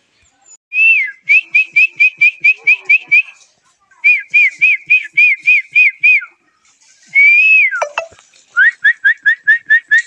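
A person whistling quick runs of short, high notes, about four or five a second, to call a pet myna. There are three runs, with one longer whistle between the second and third that slides and then drops sharply.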